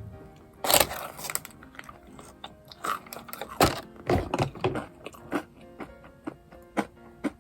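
Close-up crunchy bites and chewing of crisp food, in irregular loud crunches, over quiet background music.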